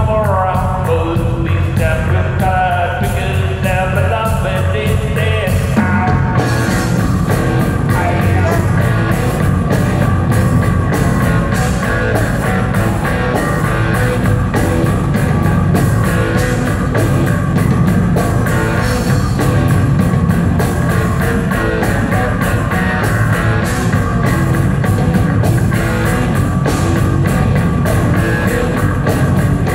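A live rock band playing, heard from the audience in a theatre. It opens with a wavering melodic line over a low bass, and the drums and full band come in about six seconds in.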